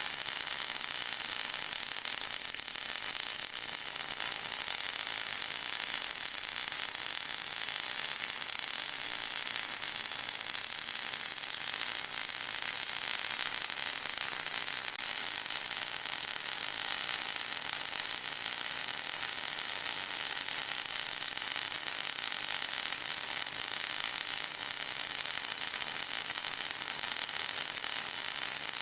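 Steady high-pitched hiss with a fine crackle running through it: a synthetic noise track for masking tinnitus.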